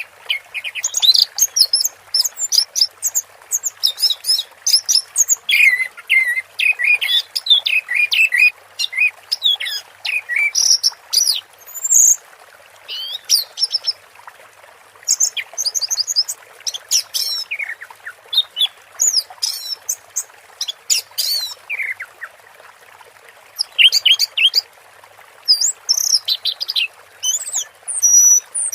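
Orange-headed thrush singing a long, varied run of quick whistled and chattering phrases with short breaks, over the steady sound of trickling water.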